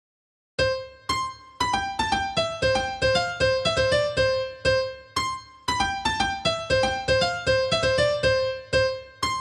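Nokia phone ringtone: a short repeating melody of single notes in a piano-like tone, two to three notes a second, starting about half a second in.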